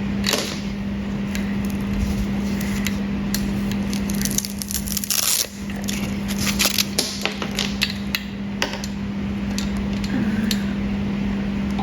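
Scattered clicks, taps and rustles from handling the laser tube's high-voltage wires and connectors, with a brief hissing rustle about five seconds in, over a steady low hum.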